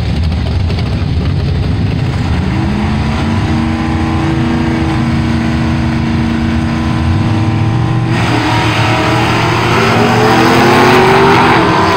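Two drag-racing cars' engines idling and rising in revs at the starting line, then about eight seconds in both launch at full throttle, the engine pitch climbing as they accelerate away down the strip.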